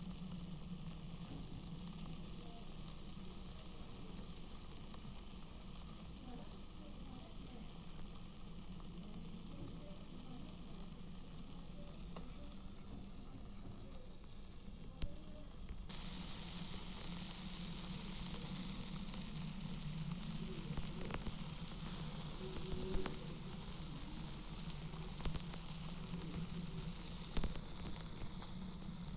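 Food sizzling on a barbecue grill: a steady hiss with scattered small crackles and pops. About halfway through, the hiss turns suddenly louder and brighter.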